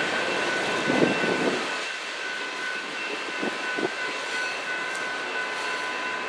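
Union Pacific GE AC45CCTE diesel locomotives passing: engines and turbochargers running under a steady rumble of wheels on rail, with a couple of brief louder swells. Steady high ringing tones sit over it, likely the crossing bell.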